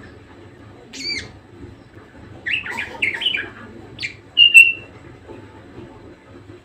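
Budgerigar calling: a single sharp call about a second in, a quick run of chattering chirps in the middle, then a short clear whistled note, the loudest, at about four and a half seconds.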